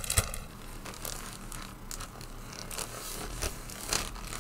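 Clear plastic bags rustling and crinkling as plastic model-kit sprues are slid into them by hand, with a sharp click just after the start.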